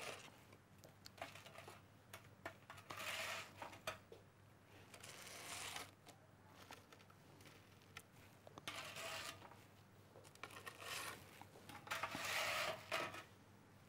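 Faint scraping and clicking of a spatula sliding crumb-coated potato wedges onto a ceramic plate, in several short bursts, over a low steady hum.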